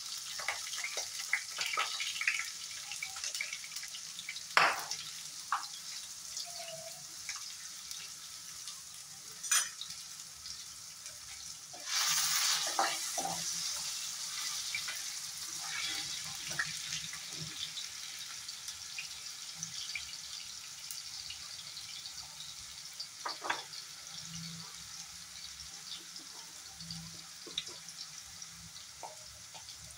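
Potato chunks frying in oil in a non-stick kadai: a steady sizzle that slowly dies down. Now and then a steel spoon knocks and scrapes as they are stirred, with a louder surge of sizzling about twelve seconds in.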